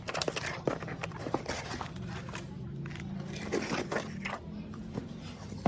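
Irregular small clicks, taps and scrapes of hand tools working on a phone, over a low steady hum.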